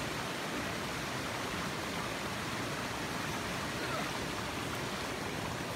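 Steady rushing of flowing water in a rocky gorge, an even hiss with no breaks.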